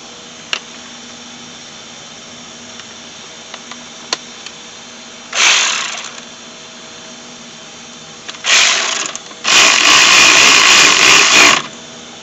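Handheld power tool running in three short bursts, the last and loudest about two seconds long, driving bolts at the rear brake rotor.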